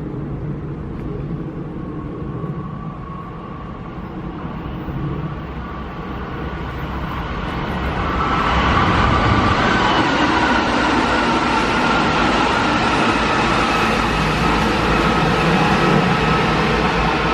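Keihan electric train coming into the station and running alongside, its wheels rumbling on the rails. It grows louder about eight seconds in, with a steady whine over the rail noise.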